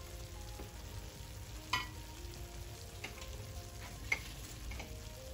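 Mola fish and radish curry simmering in a frying pan on the stove, with three short sharp pops.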